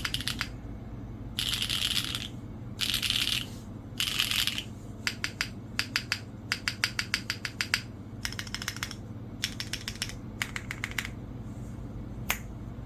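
Neo65 65% mechanical keyboard being typed on: carbon-fibre plate, gasket mount, no foam, HMX switches under ABS doubleshot keycaps. Three quick flurries of rapid keystrokes come first, then runs of separate keystrokes with short pauses, and one last keystroke near the end.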